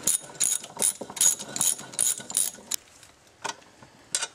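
Ratchet wrench clicking in quick strokes, two or three a second, as a plug is backed out of a manual transmission case. The clicking stops about three seconds in, and two fainter clicks follow near the end.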